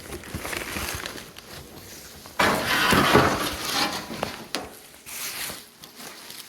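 A cardboard shipping box and its packing being handled and pulled open: a few noisy rustling, scraping bursts, the loudest starting about two and a half seconds in and another shorter one near the end.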